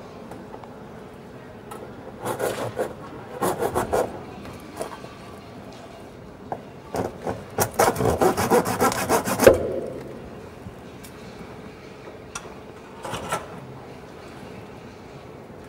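A hand tool scraping and sawing at a rough, dry figure, in runs of quick strokes: a few strokes about two seconds in, a longer, louder and faster run around eight seconds in, and a short one near the end.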